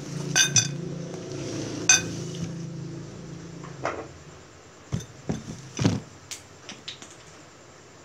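Three sharp ringing clinks of chopsticks and ceramic dishes, then several knocks as a wooden cutting board is set down on the table, followed by a few light knife taps on the board. A low steady hum runs under the first three seconds.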